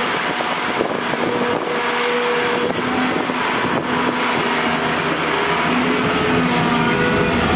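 Volvo EC480DL tracked excavator working as it digs into earth and lifts a full bucket of soil and rock: steady diesel engine noise with a faint hydraulic whine that steps up and down in pitch, and a deeper engine rumble that strengthens in the last couple of seconds.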